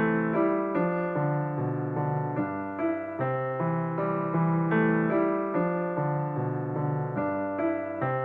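Background piano music: a gentle melody and chords, with new notes struck about every half second.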